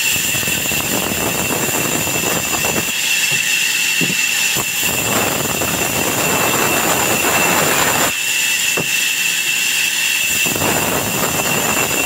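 Vertical band saw running with a steady high whine while its blade cuts through a log. The cutting comes in three spells of a few seconds each: at the start, in the middle and near the end.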